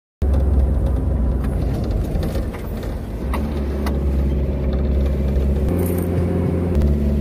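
Car engine and road noise heard from inside the cabin while driving: a steady low hum whose pitch shifts slightly twice near the end, with a few light rattling clicks around the middle.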